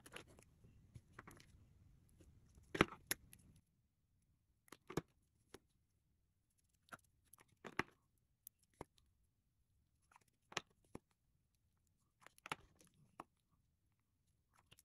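Lipstick tubes being handled on a wooden table: scattered soft clicks and taps as tubes are set down and caps are pulled off and pushed back on, the loudest about three seconds in.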